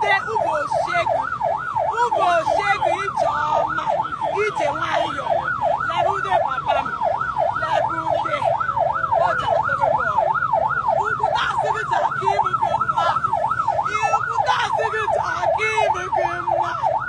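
Vehicle siren sounding in a fast yelp, its pitch sweeping up and down about three times a second without a break.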